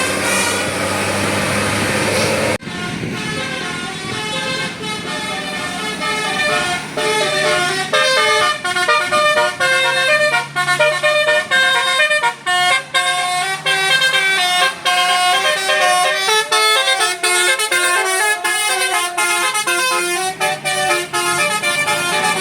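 Telolet basuri multi-tone musical air horn on a tour bus playing a fast tune of short stepped notes. Before it, for about two and a half seconds, a bus engine runs with traffic noise, and that cuts off suddenly when the horn tune begins.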